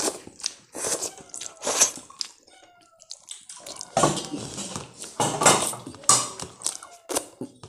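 Mukbang eating sounds close to the microphone: a person eating rice and curry by hand, with wet smacking, chewing and sucking on the fingers, and fingers scraping food together on a metal plate. Irregular clicks and wet smacks, with a quieter moment about halfway through.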